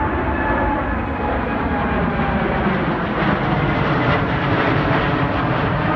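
Boeing 787 Dreamliner's twin jet engines at takeoff power as it climbs low overhead: a loud, steady rumble and rush, with faint whining tones falling in pitch as it passes.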